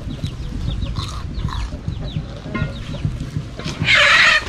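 Chickens calling, with short chirping calls throughout and one loud, harsh squawk near the end.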